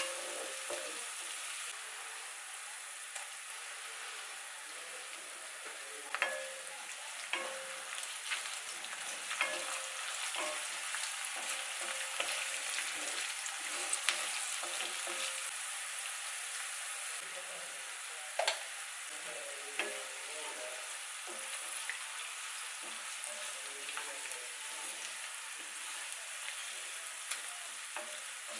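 Marinated chicken legs frying in hot oil in a pan: a steady sizzle, with a handful of sharp knocks, the loudest about six and eighteen seconds in.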